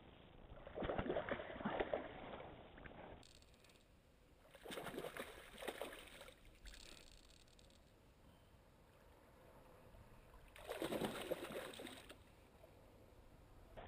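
Water splashing and sloshing in three short bursts.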